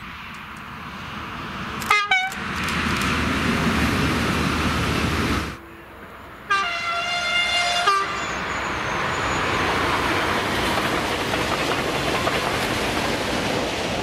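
French train horns: two quick horn toots about two seconds in, then, from another train, one horn blast of about a second and a half a little past halfway. The steady rumble of a train running on the rails goes on around and after them.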